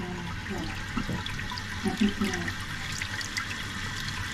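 Toilet running: water flowing steadily through the tank into the bowl without shutting off, the sign of a flapper that is not sealing.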